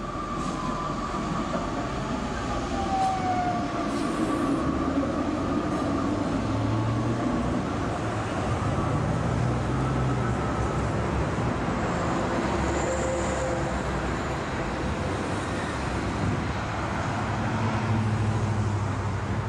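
Electric tram running past on its rails: a steady motor hum and wheel rumble, with a whine that slides down in pitch in the first few seconds.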